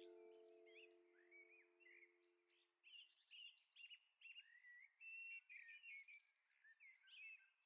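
Faint birdsong: many short chirps and gliding whistled notes from small birds, one after another. A held low chord fades away in the first three seconds.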